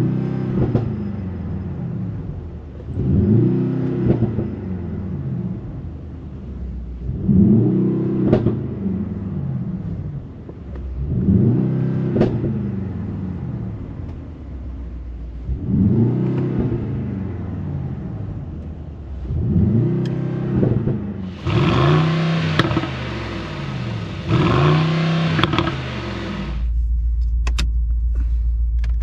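The 4.0-litre twin-turbo V8 of a 2024 Mercedes-AMG GLS 63 is revved about eight times in a row while standing still, heard inside the cabin. Each rev rises and falls back to idle, roughly every four seconds. A loud rushing hiss covers the last few revs, and near the end the engine settles into a steady low drone as the SUV drives off.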